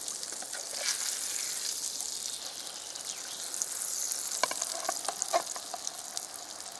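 Spelt patty sizzling steadily in hot fat in a small camping frying pan. A spatula gives a few light scrapes and taps against the pan, mostly in the second half.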